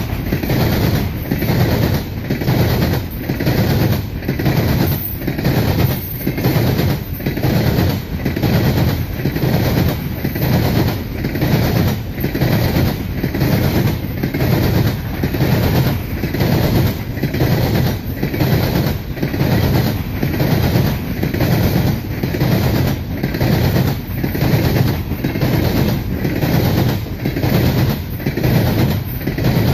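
Empty coal gondola cars of a CSX freight train rolling past, a continuous rumble with the wheels clacking over rail joints in a steady, evenly spaced rhythm.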